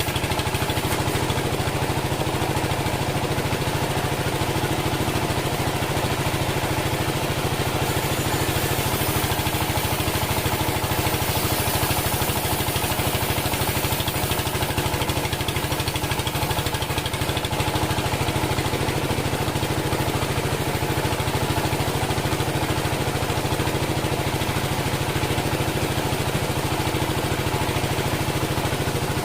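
Engine of a homemade bandsaw sawmill running steadily at an even speed. A higher hiss joins for several seconds around the middle.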